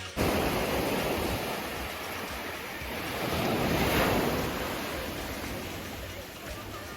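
Sea waves washing ashore, one swell building to a peak about four seconds in and then easing off.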